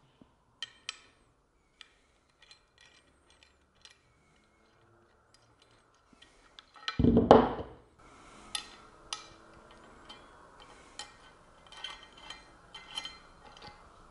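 Scattered light clicks and rubbing as the shipping spacers are worked off the ends of an aluminium windsurf-foil fuselage, with one louder half-second scrape about seven seconds in.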